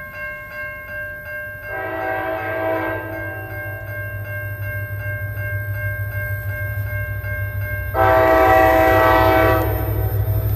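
Nathan K5LA five-chime air horn, unrestricted, on an NJ Transit GP40PH-2B diesel locomotive, sounding two long blasts for a grade crossing: one about two seconds in and a longer, louder one near the end. Under it the locomotive's diesel rumble grows steadily as the train approaches.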